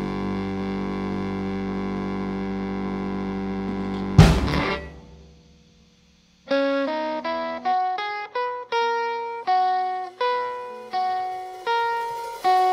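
A rock band holds a final chord that ends on a loud hit about four seconds in and rings away to near silence. About two seconds later a solid-body electric guitar starts picking single notes one after another, each left to ring, the intro of the next song.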